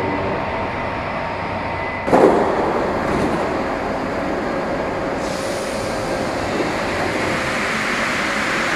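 Alstom NS-16 rubber-tyred metro train running, a steady rumble with a faint motor whine, and the noise jumping up suddenly about two seconds in and growing hissier again about five seconds in.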